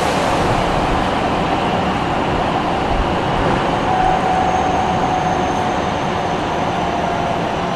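Nagoya Municipal Subway 6050 series train running through the tunnel, heard from inside the car: a steady roar of wheels and tunnel. About four seconds in, a faint whine comes in and slowly falls in pitch.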